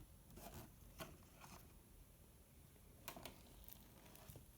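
Near silence: room tone with a few faint, short clicks and rustles.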